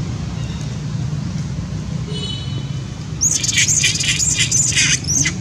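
Long-tailed macaque screaming: a quick run of about half a dozen high-pitched shrieks beginning a little past halfway through, over a steady low hum.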